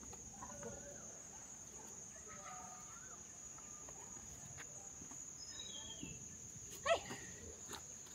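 Steady high-pitched drone of forest insects, with scattered bird chirps. A short, loud call comes about seven seconds in.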